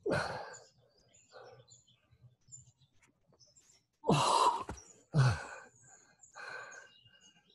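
A man breathing hard during push-ups: forceful exhalations, loudest at the start and twice more a little after four and five seconds in, with softer breaths between.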